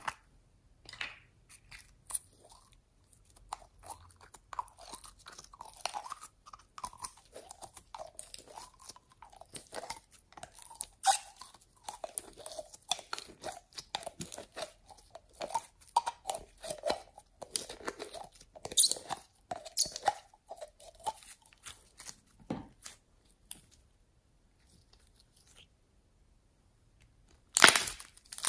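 Blue glitter slime squelching and crackling with many small irregular pops and clicks as it is squeezed out of a plastic bottle into clear slime and worked by hand. A louder crackling squish comes near the end as both hands press into it.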